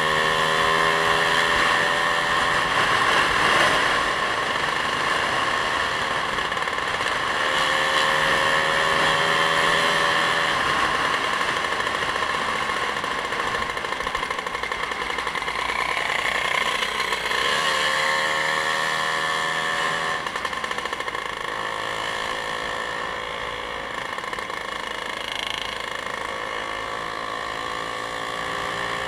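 Motorcycle engine accelerating through the gears on the road, its pitch rising several times with each gear, over steady wind and road noise.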